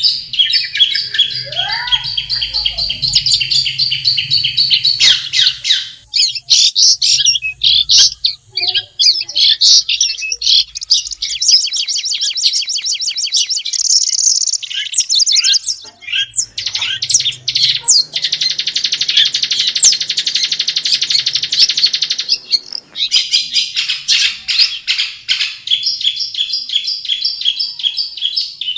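Long-tailed shrike (cendet) singing: a loud, fast, nearly unbroken run of chattering, scratchy notes in ever-changing phrases, with a dense buzzy trill of about four seconds two-thirds of the way through.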